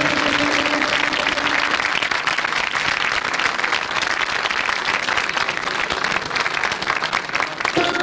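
Audience applauding steadily, with the last held note of the song dying away in the first second or two.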